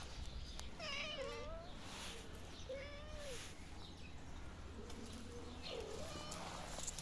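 Stray cats meowing for food, about three separate meows: a long wavering one about a second in, then shorter ones midway and near the end.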